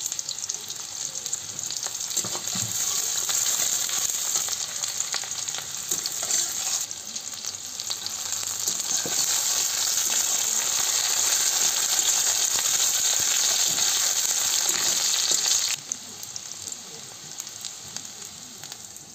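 Garlic, onion and whole spices sizzling in hot oil in a steel kadai, stirred with a metal spatula. The sizzle drops off suddenly about three seconds before the end.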